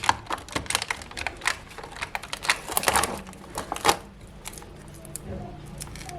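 Small plastic toy pieces clicking and tapping irregularly as they are handled and set down, busiest for the first four seconds and then sparser and quieter.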